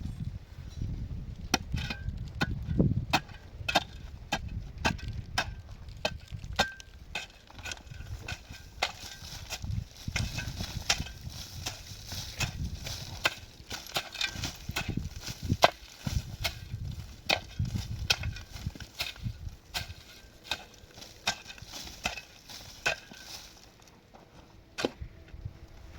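Knocking, tapping and scraping of hands and tools at building work, with sharp irregular knocks several a second over a low rumble. It thins out near the end.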